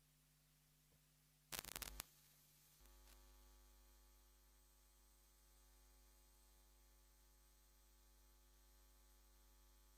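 Near silence with a faint electrical mains hum. About a second and a half in comes a short crackle, after which the hum turns into a steady buzz.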